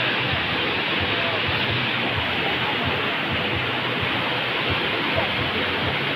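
Steady rush of river water, an even hiss that holds unchanged throughout.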